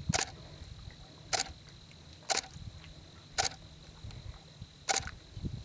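Canon 5D Mark IV DSLR shutter firing five single frames, sharp clicks about a second apart, as the photographer shoots the pose.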